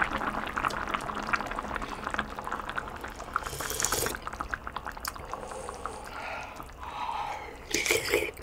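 Spooning hot kimchi stew broth: the spoon clinks and the liquid drips and pours over rice with many small ticks for the first few seconds, then a noisy sip at the spoon about halfway through and a louder one near the end.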